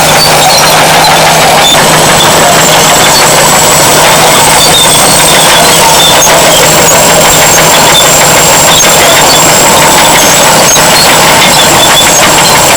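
Caterpillar D7 bulldozer's diesel engine running steadily, with a high, thin turbocharger whistle held over the engine note, rising slightly in pitch about midway.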